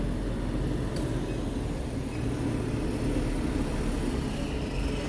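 Regional bus engine running with a steady low rumble as the bus pulls up at the stop.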